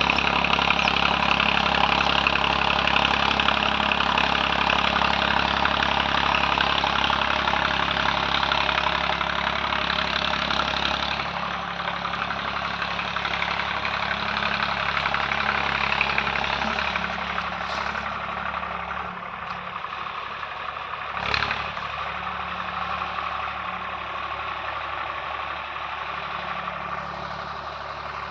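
Swaraj 744 tractor's three-cylinder diesel engine, fitted with an Eicher silencer, running steadily. The sound drops in level about eleven seconds in and again around twenty seconds, with one brief sharp knock shortly after.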